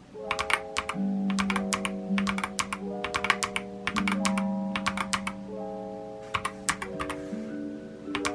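Keys being pressed on a clear mechanical keyboard, sharp clicks in quick irregular clusters, over background music of sustained soft chords.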